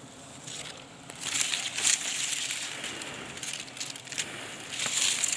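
Leaves rustling and crackling as they scrape against the phone close to its microphone, in two bouts: one about a second in and one near the end.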